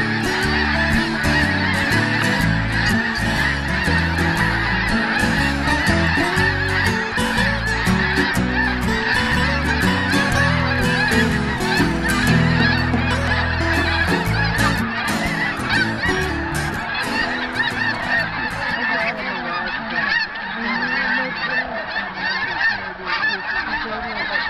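A large flock of geese taking flight, a dense, continuous din of honking from hundreds of birds that thins slightly near the end.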